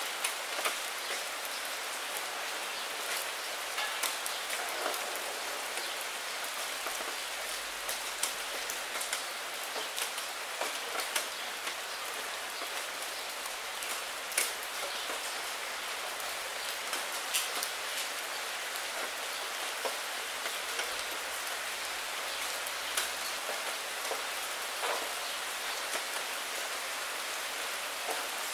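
Steady rain falling on a puddle and wet fallen maple leaves: a constant hiss dotted with many separate drop ticks and splats.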